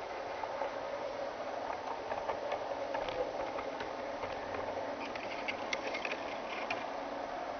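G scale model train (BR 209 locomotive) running on garden track, its motor and gears giving a steady whirr with the rolling noise of the wheels. A run of small sharp clicks comes about five seconds in.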